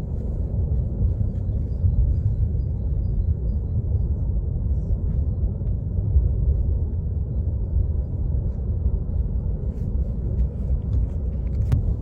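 Lava fountain at Kilauea's South Vent, jetting lava about 1,000 feet high: a steady, deep rushing rumble with no let-up. A sharp click sounds near the end.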